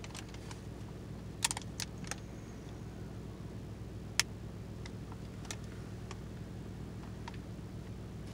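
Scattered sharp crackles and clicks of plastic snack packets being picked up and handled, the loudest about four seconds in, over a steady low hum inside a car.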